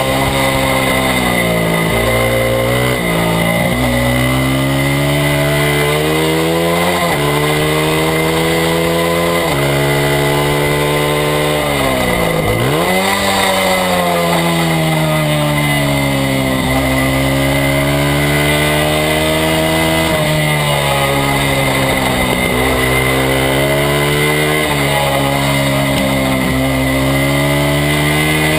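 Small single-cylinder four-stroke engine of a Honda XR100/CRF100 race bike running hard, its pitch repeatedly climbing and then dropping as it is ridden around the track, with a deep dip near the middle as it slows for a corner and then pulls away.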